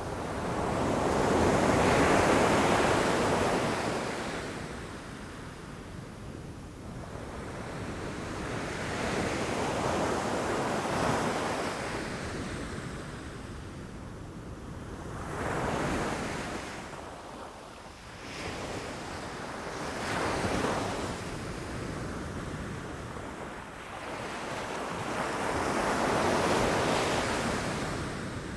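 Ocean waves breaking against rocks: a rushing wash of surf that swells and subsides about five times, the loudest surge near the start, with some wind.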